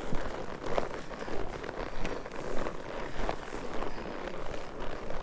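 Horse hooves walking on a dirt trail, a steady beat of footfalls about every half second, over a noisy rustle of movement and wind.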